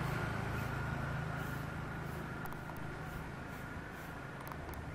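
KAI KT-1 Woongbi's Pratt & Whitney PT6A turboprop running as the trainer taxis: a steady high whine over a low drone, slowly fading.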